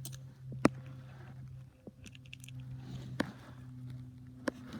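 A few sharp clicks and taps of small plastic toy-train parts being handled and pulled apart, over a steady low hum.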